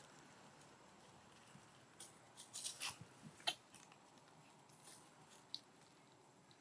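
Near silence with a few faint, short clicks and rustles, bunched between about two and three and a half seconds in and once more near the end.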